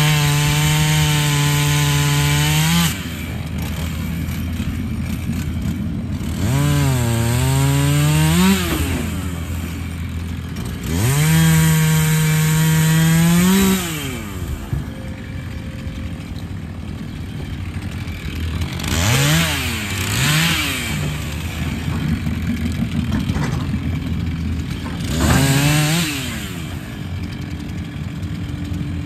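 Two-stroke Stihl chainsaw revving to full throttle in runs of two to three seconds while cutting through a felled log, dropping back to idle between cuts. Its pitch sags under load on one cut. Near the end come a few short throttle blips. A steady low diesel drone from the excavator runs underneath.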